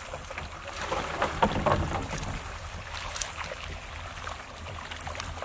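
Water splashing and sloshing around a wooden fishing boat as men haul in a net, with a cluster of splashes and knocks about a second in. Under it a steady low rumble.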